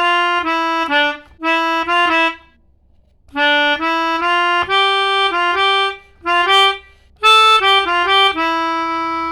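Pianika (melodica) playing the 'telolet' bus-horn tune: several short phrases of quick reedy notes with brief pauses between them, ending on a long held note.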